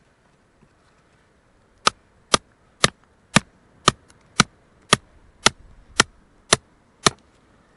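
Hammer striking a steel chisel eleven times, about two blows a second, driving it into hard, sticky clay to free a fossil ammonite nodule. The blows start about two seconds in.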